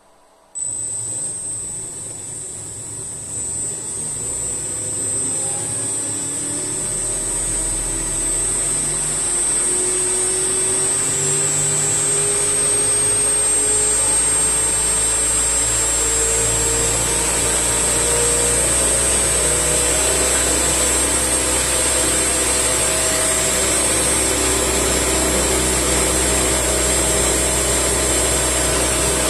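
A 3D printed axial flux brushless DC motor with a nylon propeller starts about half a second in and spins up. Its whine rises in pitch over roughly the first fifteen seconds, then holds steady near top speed alongside a high steady whine and loud rushing air from the propeller; it is quite noisy as it nears maximum RPM.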